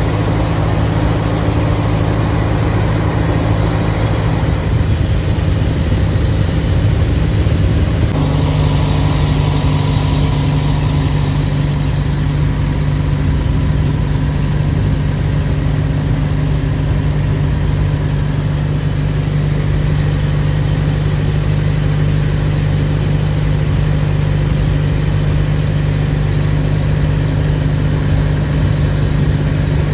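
An engine running steadily close by, its pitch stepping up slightly about eight seconds in.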